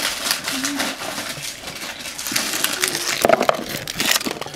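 Snack packaging and a cardboard box being handled: a dense run of crinkling and rustling, with a few sharper knocks from about three seconds in.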